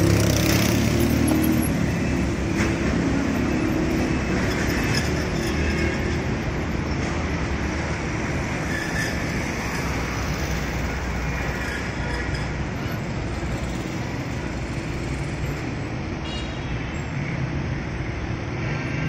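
Steady vehicle and traffic noise: a low engine rumble under an even road hiss, with no single event standing out.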